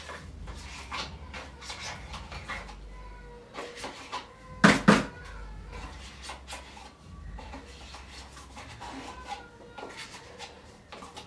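A spoon clicking and scraping as Blue Band margarine is scooped out of a plastic tub and knocked off into a plastic mixing bowl, with one loud knock about five seconds in.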